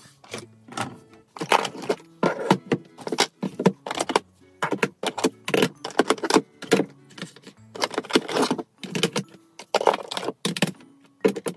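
Plastic makeup compacts and palettes clacking and rattling as they are picked up and set down in a drawer, a quick run of knocks, over background music.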